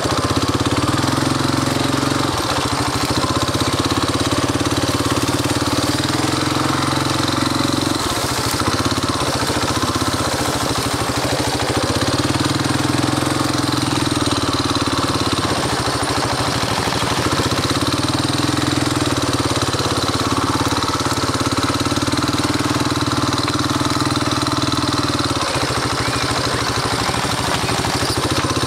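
Tao Tao 110cc ATV's small single-cylinder four-stroke engine running throughout, its speed rising and falling every few seconds as the throttle is worked around a dirt track.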